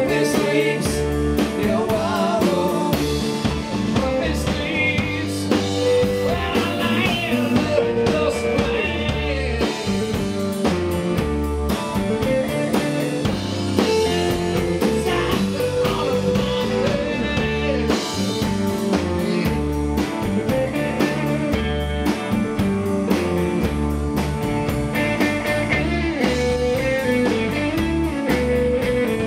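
Live rock band playing: electric guitars, electric bass and drum kit.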